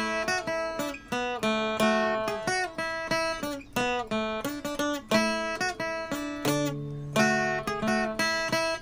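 Background music: plucked and strummed acoustic guitar playing a steady run of notes.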